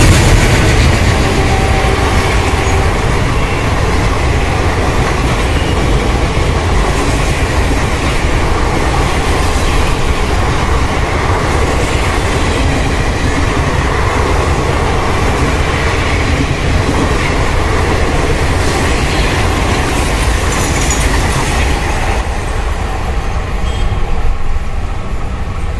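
Passenger train coaches rushing past at speed, a loud steady rumble of wheels on the rails. The noise eases a little near the end as the last coaches clear.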